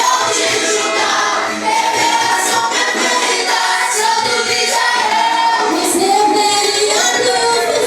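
A group of voices singing a worship song together, with several held and gliding sung notes.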